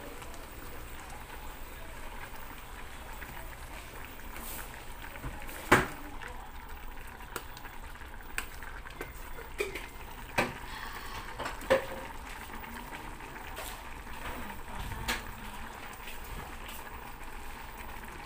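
Instant ramyeon noodles and broth boiling in a small stainless steel pot, a steady bubbling hiss. A few sharp clinks of a metal utensil against the pot cut through it.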